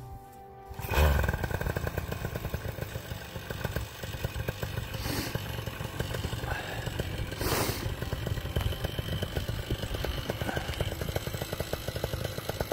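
Vittorazi Moster 185 single-cylinder two-stroke paramotor engine, which comes in sharply about a second in and then runs steadily at a low idle, warming up before launch.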